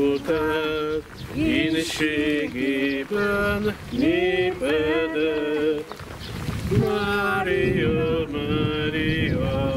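Voices singing a church hymn in held phrases of about a second each, with short breaks between them.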